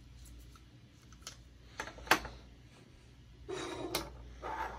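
Plastic phone tripod mount clamps clicking and knocking as they are handled and set down on a wooden desk. There are a few sharp clicks, the loudest about two seconds in, then two short scrapes near the end.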